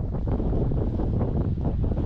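Wind buffeting the microphone, a steady low rumble with irregular gusts.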